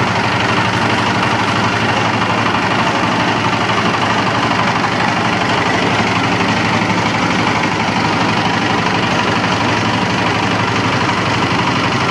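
An engine running steadily at a constant speed, with an even low hum under a dense mechanical clatter.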